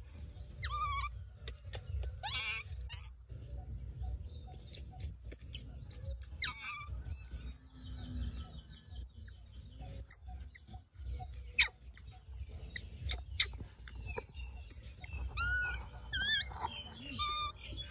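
Baby macaque giving short, high, whimpering cries, some wavering and some rising and falling, with sharp clicks and taps in between; the loudest clicks fall near the middle.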